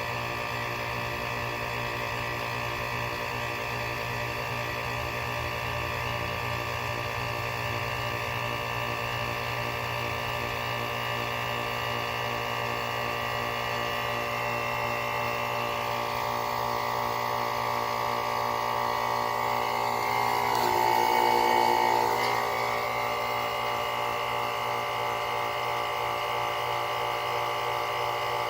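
Heat pump outdoor unit in its defrost cycle: the compressor runs steadily in cooling mode with the outdoor fan off, melting ice off the coil. About twenty seconds in, a louder whine swells for a couple of seconds and then fades back.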